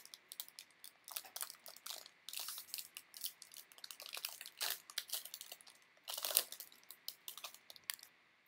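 The wrapper of a Topps Series 1 baseball card value pack being torn open and crinkled by hand: a run of irregular crackling rustles, loudest a little after six seconds in, dying away near the end.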